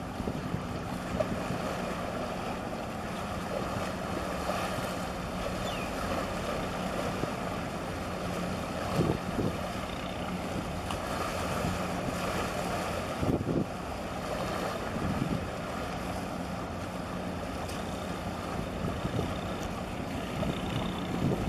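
Wind buffeting the microphone in gusts over the wash of small waves at the shoreline, with a steady low hum underneath from a large container ship's engines.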